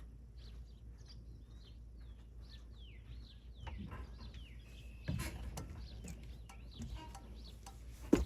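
Small birds chirping with many quick rising and falling notes. A few sharp knocks and clicks cut through, the loudest near the end.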